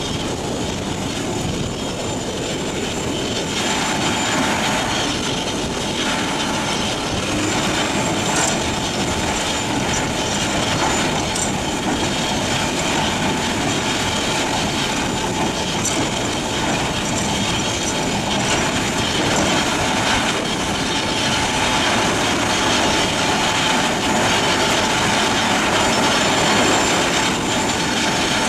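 Morbark HT1684 Predator tracked shredder working, its 500 hp engine running steadily under load with a steady whine held over the din. The slow-speed shredder grinds the waste wood, with a few sharp cracks about 8, 11 and 16 seconds in.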